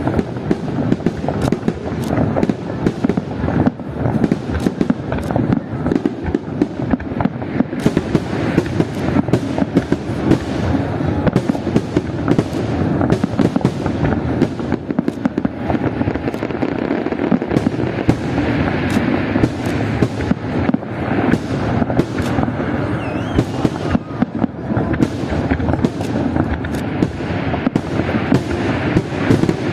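Fireworks display: a dense, unbroken barrage of bangs and crackles over a continuous low rumble.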